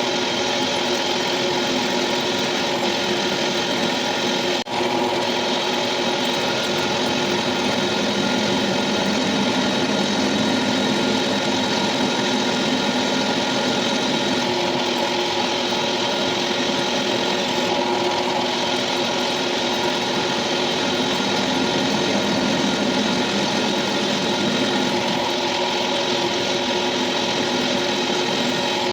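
Metalworking machine running steadily, a constant hum with several steady whining tones from its motor and drive. There is a brief break about four and a half seconds in.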